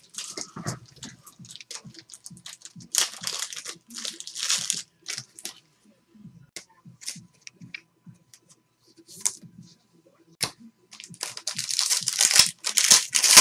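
Foil wrapper of a trading-card pack being crinkled and torn open, in bursts about three to five seconds in and again near the end, with light clicks of handling in between.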